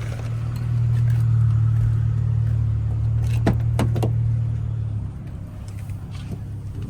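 Car running, heard as a steady low hum that drops away about five seconds in, with three quick clicks a little before that.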